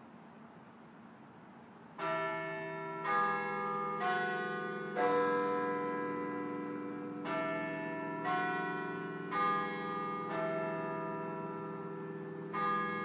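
Clock-tower bells chiming phrases of four notes, about one note a second, with a short pause between phrases; the first phrase starts about two seconds in, after faint hiss, and a third phrase begins near the end. Each note rings on and overlaps the next.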